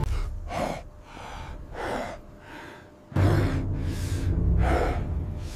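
A man breathing hard through bared teeth in four loud, harsh gasps about a second and a half apart. A low rumble comes in about three seconds in and runs under the later breaths.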